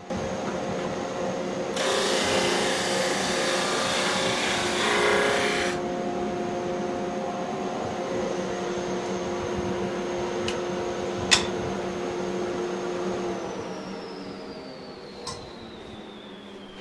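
JET drum sander running with its dust collection, a steady machine hum; about two seconds in, a rough sanding hiss for some four seconds as a segmented wood ring is fed under the drum to flatten it. A sharp click a few seconds later, then near the end the machine is shut off and its pitch falls as it winds down.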